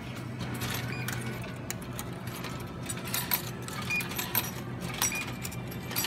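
Ten-yen coins fed one at a time into an ice cream vending machine's coin slot: a run of short metallic clinks and clicks as each coin drops through the coin mechanism, over a steady low hum.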